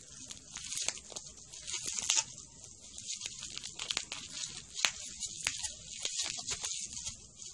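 Green plastic bubble wrap crinkling and crackling as a dog chews and paws at it, a fast irregular run of sharp little snaps with a few louder pops about two seconds and about five seconds in.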